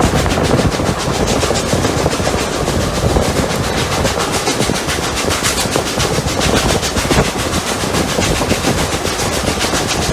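Steam locomotives Rx207 and 621 working uphill, heard from on board the train: a dense steady din of exhaust and running gear, with a rapid, even beat.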